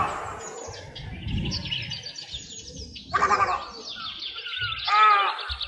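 Several birds chirping and twittering in quick high notes, with a few louder, fuller calls standing out about three seconds in and, loudest, about five seconds in.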